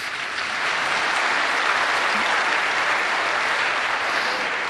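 Large audience applauding: steady, dense clapping.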